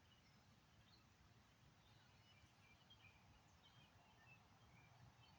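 Near silence, with faint, short bird chirps scattered throughout.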